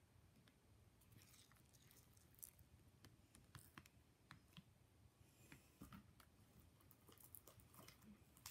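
Near silence with faint, scattered sticky clicks of foam slime being squeezed and pulled apart in the fingers.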